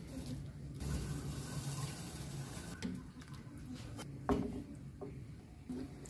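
Steel ladle scooping black chickpea curry out of a pressure cooker and pouring the gravy into a serving dish, with soft liquid splashing and one sharp clink about four seconds in.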